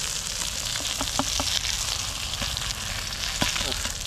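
Masala-coated fish sizzling in hot coconut oil in a nonstick frying pan, a steady hiss with a few small sharp pops and clicks; the fish is fried through and ready.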